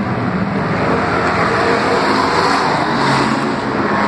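Several street stock race cars' engines running as the cars lap an oval track, their overlapping pitches shifting as the cars go by.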